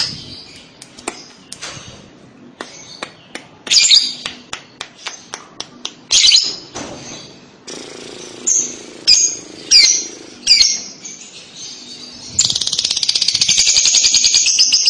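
Fischer's lovebird calling: a run of short, sharp chirps and clicks. About twelve seconds in it breaks into a long, rapid, rattling trill, the lovebird's 'ngekek' chatter song.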